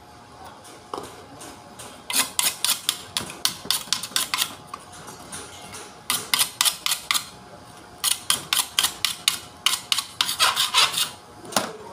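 Hand screwdriver working screws on a forklift alternator's new IC regulator and rectifier assembly, giving three runs of rapid clicks at about five a second.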